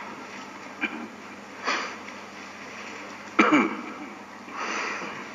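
A man breathing and sniffing close to a microphone between sentences, with a short throat sound about three and a half seconds in.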